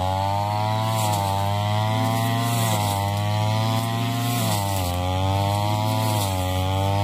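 Ryu two-stroke backpack brush cutter running at high speed, its engine note sagging and recovering about every second and a half to two seconds as the spinning head cuts into thick, tall grass.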